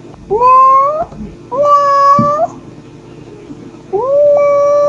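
Mother domestic cat meowing in calls to her kittens: three drawn-out meows, each rising in pitch and then holding, the third the longest and still going at the end.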